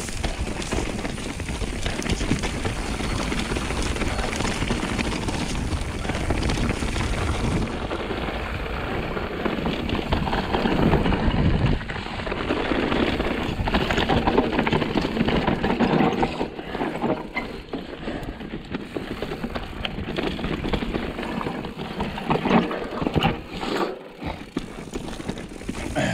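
Mountain bike descending a steep, loose, rocky trail: tyres crunching over dirt and rock, with a steady clatter of knocks and rattles from the bike over the chunk.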